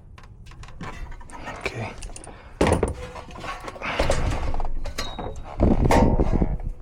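Knocks, clicks and clatter of tools and metal parts being handled, with several louder bouts of rattling and scraping.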